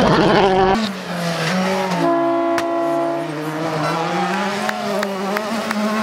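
Rally car engines at full throttle passing close by, across several cut-together passes. The engine pitch climbs and drops several times with the throttle and gear changes.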